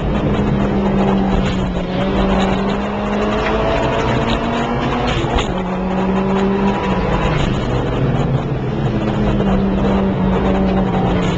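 A car engine heard from inside the cabin while lapping a race circuit at speed, its revs climbing and dropping back several times through the gears, over steady road and wind noise.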